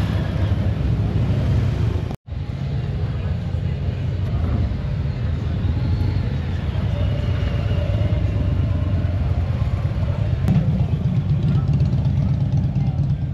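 Motorcycle engines rumbling as bikes ride by, a steady low drone. The sound cuts out completely for an instant about two seconds in.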